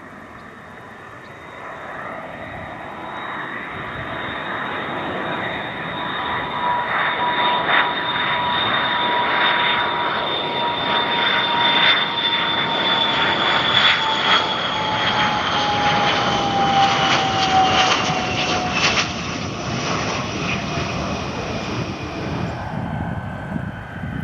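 Tupolev Tu-134UBL jet with its two rear-mounted D-30 turbofans passing close by. The engine noise builds to a loud roar with a high jet whistle that slowly falls in pitch, then eases off.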